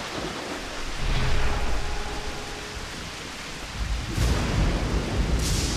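Rain-and-thunder sound effect: a steady hiss of rain with low thunder rumbles swelling about a second in and again near four seconds, and a quick whoosh near the end.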